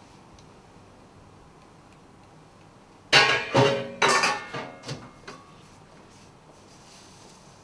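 Kitchen cookware and utensils clattering: about half a dozen quick, ringing knocks starting about three seconds in and dying away over some two seconds.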